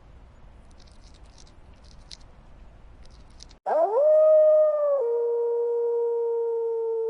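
A canine howl: after a few seconds of low background noise, one long howl starts suddenly, rises in pitch, then holds steady and drops a little in pitch about a second and a half later.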